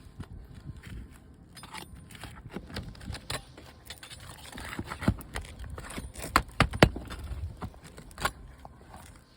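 Asphalt roof shingles being handled and worked loose: scraping and rustling with scattered sharp clicks and knocks, the loudest a quick cluster of knocks about six to seven seconds in.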